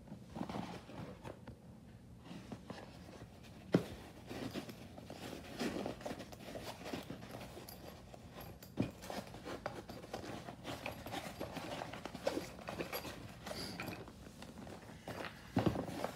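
Handling noise from a massage gun's carrying case as a hand rummages in its fabric pouch: irregular rustling and light knocks of the plastic attachment heads, with a sharp click about four seconds in and another about nine seconds in.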